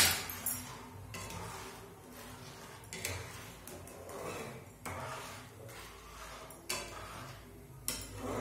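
Metal spatula stirring and scraping in a steel pot of carrot halwa as semolina is mixed into the hot milk, with a few sharp clinks of metal on the pot's side at irregular moments.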